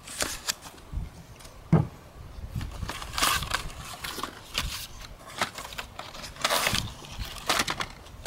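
Cardboard box flaps and crumpled brown packing paper being pulled open and moved by hand: irregular crinkling and rustling with a few knocks.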